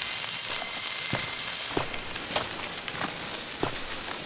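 Handheld sparkler burning: a steady fizzing hiss with sharp crackles scattered through it, roughly every half second.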